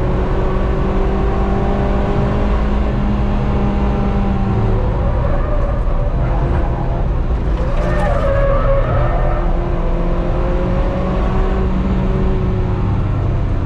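Car engine and road noise heard from inside the cabin while the car is driven hard on a race track. The engine note changes pitch a few times, about four and eight seconds in.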